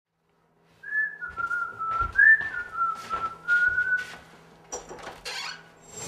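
A person whistling one held note for about three seconds, with two short upward slides, over scattered light knocks or taps.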